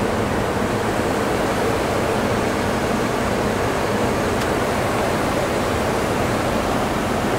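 Steady rushing noise inside the cockpit of an Embraer E195 airliner on final approach with the landing gear down: air streaming past the nose and windscreen, with the air-conditioning.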